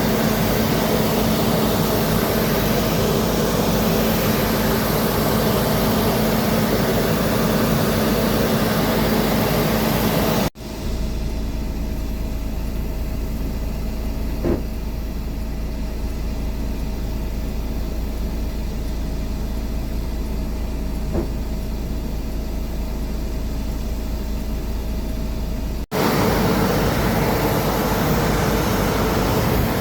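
Aircraft engines running with a steady hum. The sound cuts off abruptly twice; the middle stretch is duller, with a deep rumble and a steady mid-pitched hum.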